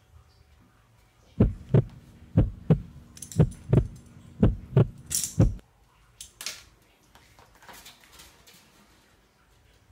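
A run of low, dull double thumps in a heartbeat-like rhythm, about one pair a second for some four seconds over a faint steady hum, then only faint light taps and rustles.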